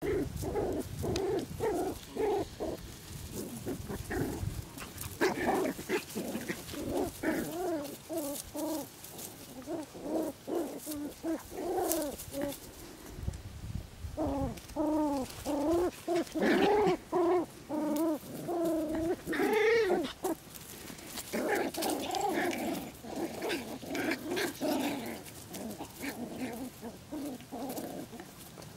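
Six-week-old poodle puppies yipping and whining in a string of short calls that bend up and down in pitch as they play, loudest in a run of calls about halfway through.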